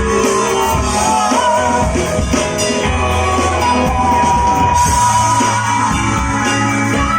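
Live rock band playing with a singer's voice over guitar and bass; a long note is held a few seconds in.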